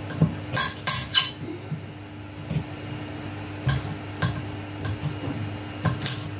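Kitchen knife slicing raw purple carrots on a chopping board: a series of uneven, sharp chops, bunched in the first second and more spaced out after. A steady low hum runs underneath.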